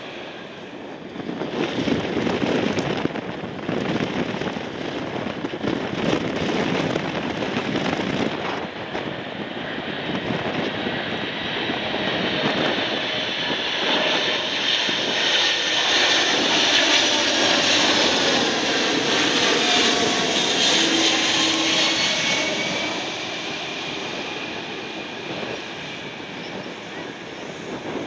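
A Boeing 747's GE CF6 engines roar roughly through its landing for the first several seconds. Then a Boeing 747 with Pratt & Whitney PW4000-series engines passes on approach: a deep, thick drone with whining tones that bend in pitch as it goes by, loudest in the middle, then easing off.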